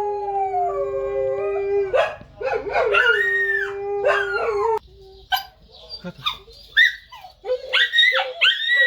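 A dog howling in two long, steady notes, then a quick run of short, high yelps and whines near the end.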